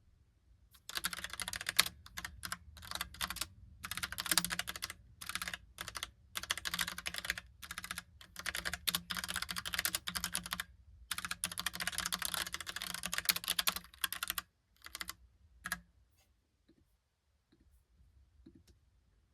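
Typing on a Logitech Pop Keys mechanical keyboard with round typewriter-style keycaps: dense runs of clacking keystrokes broken by short pauses, thinning out to a few single key clicks about fifteen seconds in.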